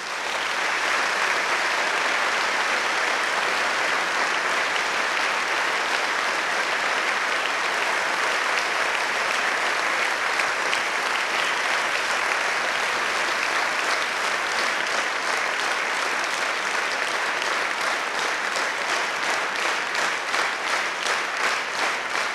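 Large audience applauding. About two-thirds of the way through, the clapping falls into a steady rhythm in unison.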